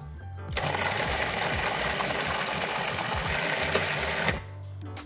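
Cuisinart 14-cup food processor running, blending a thick avocado and cocoa mousse base; the motor starts about half a second in and stops about four seconds in.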